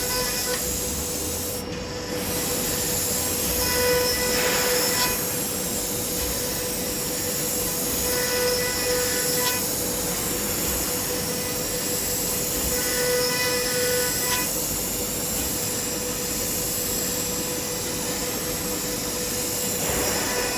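CNC router spindle running with the bit cutting MDF: a steady whine over a continuous hiss of cutting, with extra higher tones coming in briefly about every four to five seconds.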